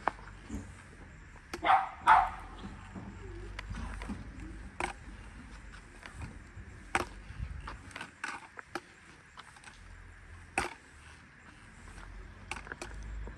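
A dog barks twice, about two seconds in, amid scattered sharp clicks and knocks.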